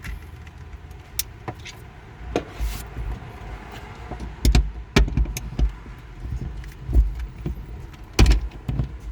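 Scattered clicks and knocks of hand tools and metal battery-terminal hardware being handled while battery cables are opened and fitted, with several sharp clacks through the second half over a low steady rumble.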